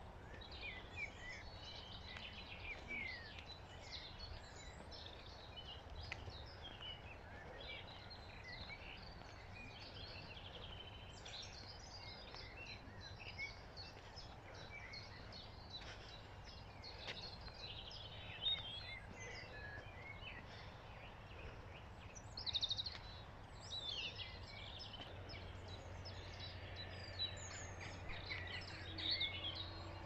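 Several songbirds singing and calling throughout, a busy mix of quick chirps, trills and sliding notes, over a steady low rumble.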